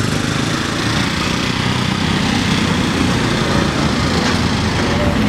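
Small light engine running steadily, heard from aboard a moving vehicle, with road and wind noise.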